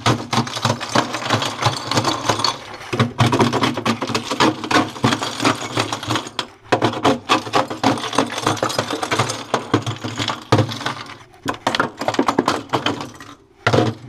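Metal screwdriver tip chipping and scraping ice out of a plastic freezer floor: rapid sharp taps and scrapes, with a few short pauses. The freezer bottom is iced up solid from condensate that could not drain.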